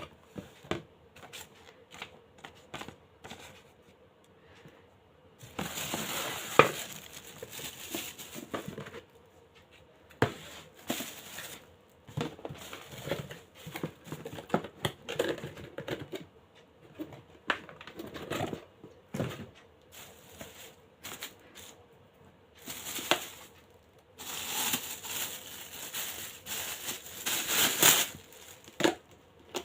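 Plastic packaging crinkling and rustling while a plastic steamer is unboxed, with many sharp clicks and knocks of hard plastic parts being handled. There are longer spells of crinkling about six seconds in and again near the end.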